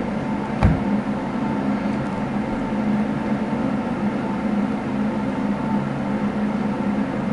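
Steady low hum over even hiss, with one short thump under a second in.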